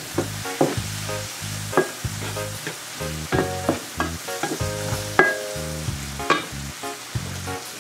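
Diced red and green bell peppers and onion sizzling in a nonstick frying pan as a wooden spatula stirs and scrapes them, with irregular sharp knocks of the spatula against the pan.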